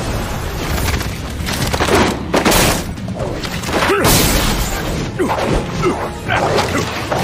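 Anime battle sound effects: heavy crashes and impacts with rumbling debris, over music. The loudest hits come a little past two seconds in and again at about four seconds.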